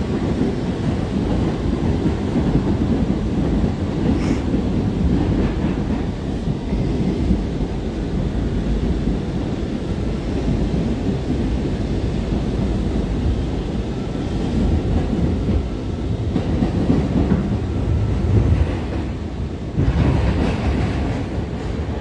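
R179 subway train running, heard from inside the car: a steady noise of wheels on the rails, getting louder about 20 seconds in.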